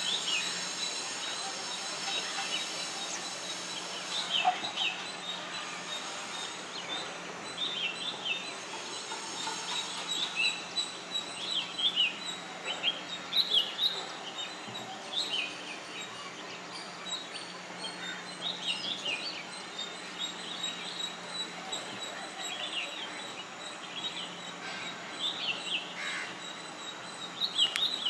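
Rose-ringed (ring-necked) parakeets calling: many short, high, falling calls in irregular bunches over a steady background hiss.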